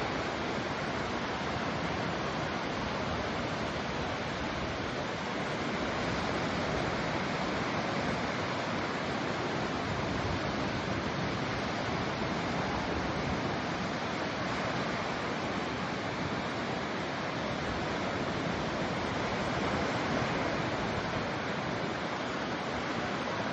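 Steady ocean surf: a constant rushing wash of waves with only slight slow swells in loudness.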